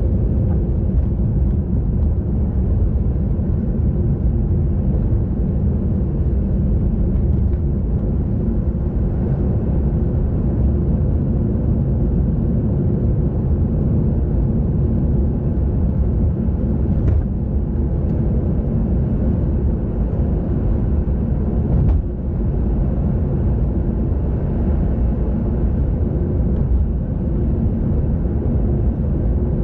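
Steady low rumble of wind buffeting the microphone while riding along the road, with little change throughout.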